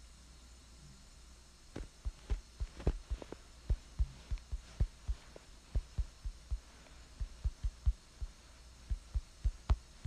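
A steady low hum, then from about two seconds in an irregular run of soft low thumps with a clicky edge, two or three a second.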